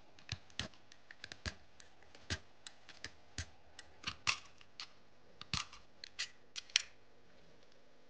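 Snap-off utility knife blade shaving wood from a pencil tip in short strokes: a string of about twenty sharp, irregular cuts and clicks that stops near the end.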